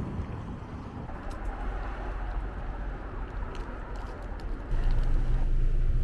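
Low, steady engine rumble of a motor vehicle running, growing louder and deeper a little before the end.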